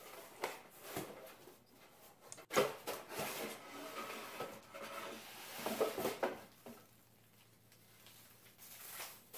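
Cardboard box and corrugated cardboard packing rustling and scraping as a helical antenna is pulled out of it by hand, with a sharp knock about two and a half seconds in. The handling quietens over the last couple of seconds.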